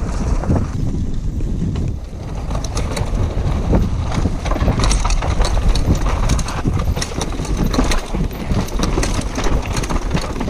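Downhill mountain bike descending a rough dirt trail: a low rumble of wind on the microphone and tyres on dirt, with a dense clatter of sharp clicks and knocks from the bike and stones over rough ground from about three seconds in.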